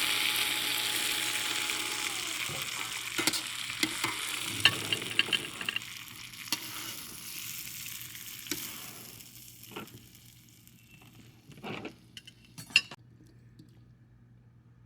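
Stir-fried beef and green beans in black bean sauce sizzling in the pan, the sizzle fading away over about ten seconds once the heat is turned off, with scattered clicks and taps of a utensil against the pan.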